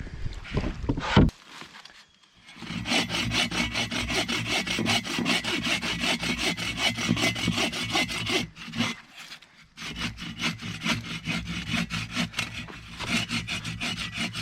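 Hand saw cutting through a dead standing tree, in quick, even back-and-forth strokes. It stops briefly about two-thirds through, then starts again. A sharp knock comes about a second in.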